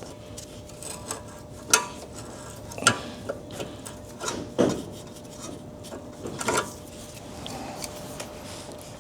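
Hand tool working a cotter pin out of the castle nut on a car's outer tie rod end: a few sharp metallic clicks and scrapes, spaced a second or two apart.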